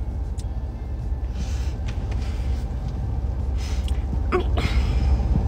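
A woman's upset breaths and sniffs between words, with a short voiced gasp about four and a half seconds in, over a steady low rumble inside a car.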